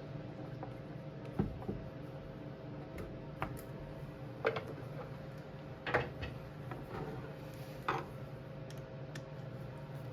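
Hand tools working on the radiator hoses of a 1995 KX80 two-stroke engine: a handful of scattered sharp clicks and light metallic knocks a second or two apart, over a steady low hum.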